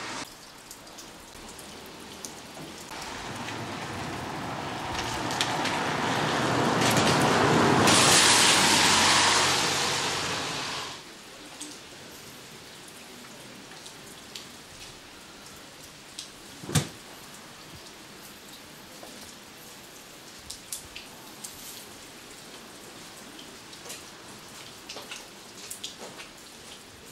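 Light rain: a soft steady patter with scattered drips and ticks. Early on a louder rushing hiss swells over several seconds and then cuts off abruptly. A single sharp knock comes a little after halfway.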